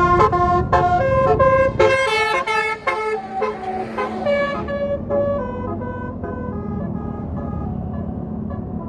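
Basuri musical bus horn playing a quick tune, a run of changing notes, loud for the first three seconds and then fainter as the tune goes on, over a low engine rumble.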